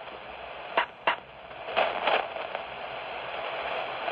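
Amateur radio receiver's speaker giving off hiss and static on an open channel between transmissions, with two sharp clicks about a second in.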